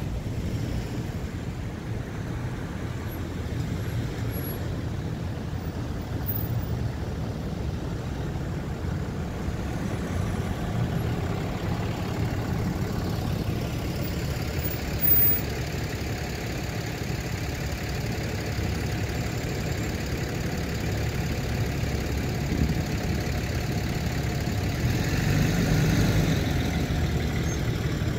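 Road traffic rolling slowly past at close range: pickup truck and SUV engines and tyres, over a steady low rumble of wind on the microphone. A brief louder bump comes about halfway through, and the traffic grows louder near the end.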